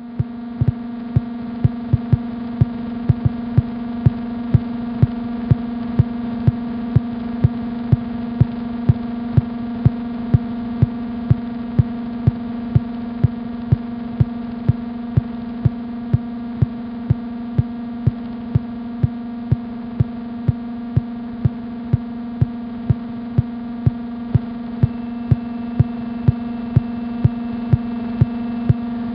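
Background music: a sustained droning chord with a soft, even pulse about twice a second. A faint high tone joins near the end.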